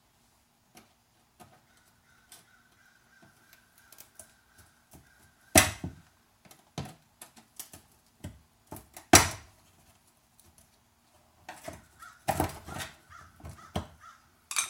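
Plastic fender liner and its push clips being pried and pulled free: a run of small clicks and plastic snaps, with two loud snaps about five and nine seconds in and a quick cluster of them near the end.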